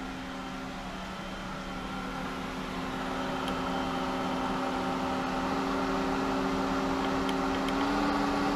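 Hayward Super Pump VS (SP2603VSP) variable-speed pool pump running and being sped up toward 2500 RPM. Its motor hum climbs slowly in pitch and grows steadily louder, with a further rise near the end.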